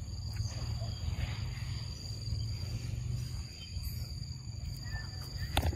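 Outdoor ambience: a steady high-pitched insect drone over a low wind rumble on the microphone, with faint small ticks and a sharp click near the end.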